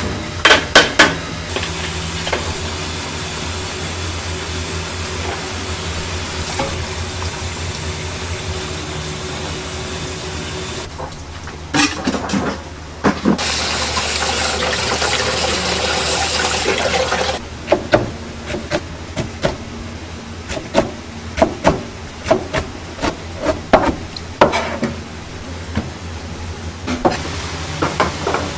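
Kitchen work with liquid and dishes: a few seconds of liquid pouring or running near the middle, with sharp clinks and knocks of bowls and utensils before and after it, over a steady low hum.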